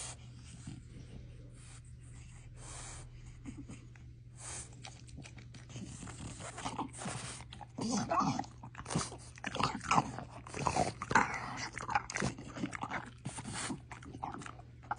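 French bulldog taking a treat from a hand and chewing it, with crunching and mouth noises that are busiest in the second half.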